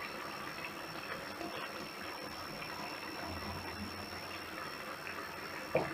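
Water bubbling and boiling off through the layer of plov rice in a kazan on high heat, a steady simmering hiss as the liquid evaporates. A short knock comes near the end.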